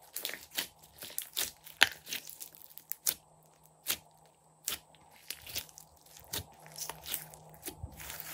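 Glossy slime being kneaded and squeezed by hand, giving irregular wet pops and crackles, roughly one or two a second.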